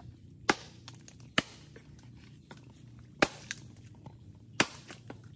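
Hard blows chopping into a dead mangrove log to split it open for the shipworms inside: four sharp strikes a second or more apart, with lighter knocks between them.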